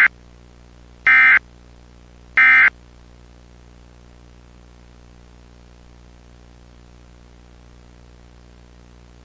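Emergency Alert System end-of-message code: short, harsh two-tone digital data bursts about a second apart, the last of them a little over two seconds in, signalling that the alert is over. A faint steady hum follows.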